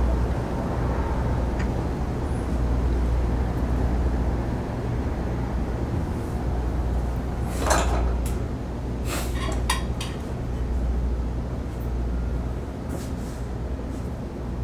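A steady low rumble, with a handful of clinks and knocks of crockery and cutlery about halfway through, the loudest the first one.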